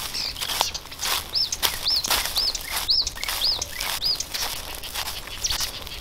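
Footsteps walking on a forest floor, with a bird calling a run of six high, arched notes, about two a second, in the middle.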